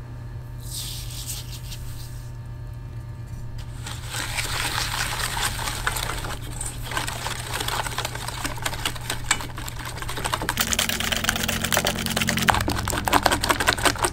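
Granulated sugar poured into a stainless steel bowl of beaten eggs, a short hiss about a second in. From about four seconds in, a silicone whisk beats the eggs and sugar against the steel bowl in fast, ticking strokes that get quicker and louder over the last few seconds, stirring until the sugar dissolves.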